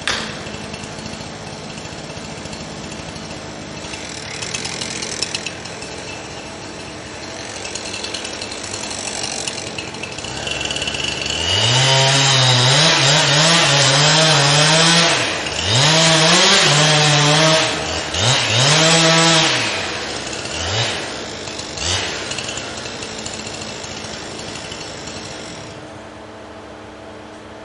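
Chainsaw running low at first, then throttled up hard about eleven seconds in. The revs drop and climb back four or five times before the saw falls back to a low run near the end.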